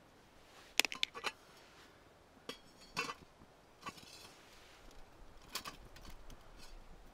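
Stainless steel pot clinking and knocking against the steel frame of a folding Bushbox XL stove as it is set on top and the stove is steadied: a quick cluster of metal clinks about a second in, then single clinks every second or so.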